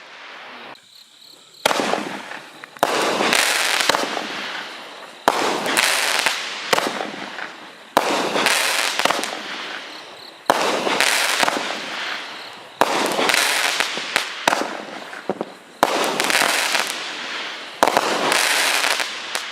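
A 200-gram consumer firework cake firing shot after shot, one roughly every two to three seconds. Each shot is a sharp bang followed by a crackle that fades over a second or two, from the crackle chrysanthemum and palm breaks.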